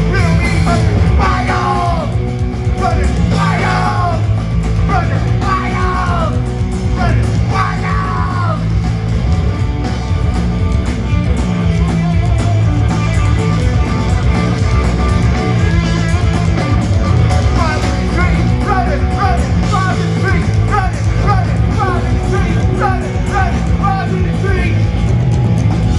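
Loud rock music with electric guitars and a steady low bass line; a voice is singing or yelling during the first eight seconds or so, and a run of quick repeated lead notes takes over later.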